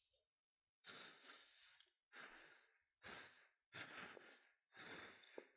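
Five soft breathy puffs of air, about a second apart, blown or breathed close to the microphone.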